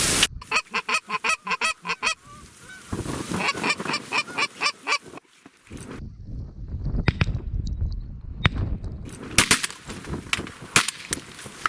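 Goose honking in two rapid runs of short, repeated calls. Several sharp cracks follow near the end and are the loudest sounds.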